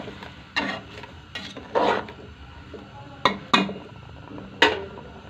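A spoon stirring chicken pieces in sauce in a metal pot, scraping and knocking against the pot about six times at uneven intervals.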